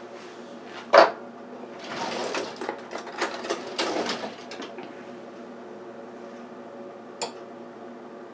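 Utensils knocking and scraping on a plate as a bite of barbecued rib is cut off with a fork: one sharp knock about a second in, then a couple of seconds of uneven scraping and clattering, and a short click near the end.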